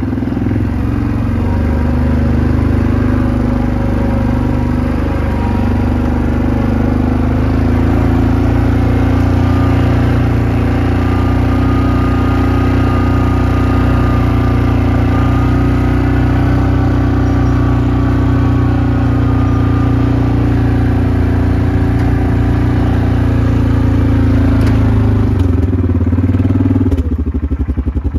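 Quad bike (ATV) engine running steadily as it is ridden along, then dropping to a pulsing idle near the end as it stops.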